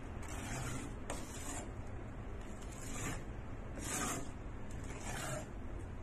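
A spoon stirring and scraping through thick bird's nest soup in a stainless-steel pot: a short swish about once a second, with a light click about a second in.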